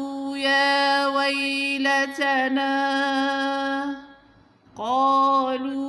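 A woman chanting the Quran in tajweed style, drawing out the vowels of each word in long held notes at a steady pitch. One phrase ends about four seconds in, and the next begins just under a second later.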